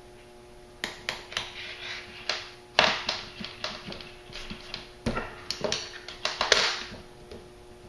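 Handling noise from nylon paracord and the sling being worked by hand as the cord is woven and pulled tight: a run of irregular rustles and sharp clicks, starting about a second in and dying away near the end.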